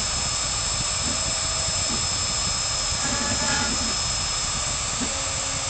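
CNC router spindle running steadily as it engraves wood, a constant hiss with a thin high whine over it. Faint voices in the background.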